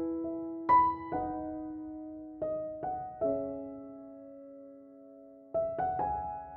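Background music: slow, gentle piano notes and chords, each left to ring and fade, with a long held chord in the middle.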